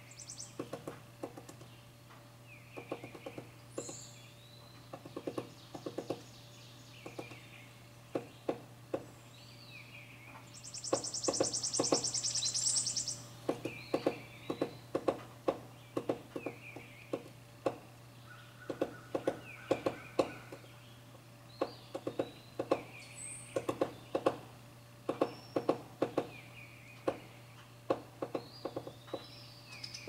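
Hairy woodpecker pecking into a carpenter bee tunnel in wood to reach the larvae: short clusters of sharp knocks, a few strikes at a time, again and again. Other birds chirp in the background, and a loud, high buzzy trill lasts about two seconds from about eleven seconds in.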